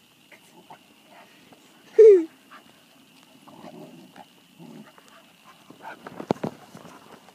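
A puppy at play gives one short yelp about two seconds in, its pitch falling. A few sharp clicks and knocks follow about six seconds in.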